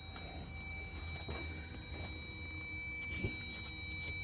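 Quiet steady low hum with a few faint clicks and taps about three seconds in.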